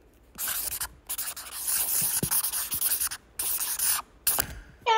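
Scratchy rubbing noise close to the microphone, in four bursts with short gaps between them, the longest running about two seconds.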